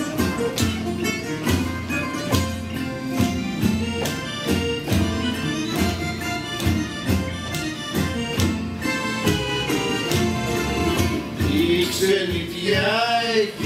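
Greek folk song played live on plucked strings, a guitar and small mandolin-type lutes, strummed and picked in a steady rhythm. Near the end a singing voice with strong vibrato comes in over the strings.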